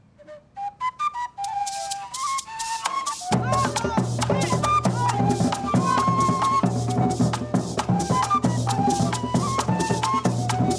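Gaita music: a cactus gaita flute plays a melody of held, slightly bending notes. Maracas shake in a quick steady rhythm from about a second and a half in, and drums join about three seconds in.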